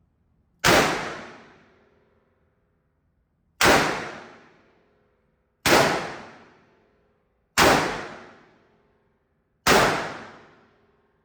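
Five gunshots fired at an even pace, about two seconds apart, each a sharp crack with a ringing echo that dies away over about a second.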